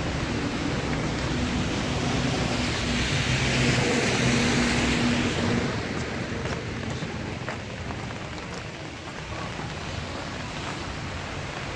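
Steady rain falling on a city street. A vehicle passes on the wet road, its hiss and low hum swelling and fading in the first half, and in the second half individual drops tap close by.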